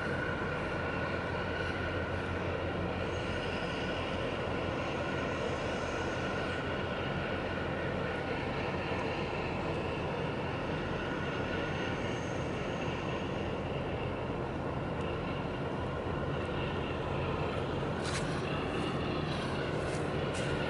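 Steady low engine rumble of a large container ship and its escort tug passing close by, with a few faint clicks near the end.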